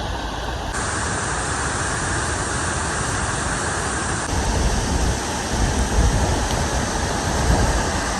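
Close-up waterfall at Chōshi Falls: a loud, steady rush of falling water, with a low rumble that swells and dips in the second half. The sound's character shifts abruptly about a second in and again about four seconds in.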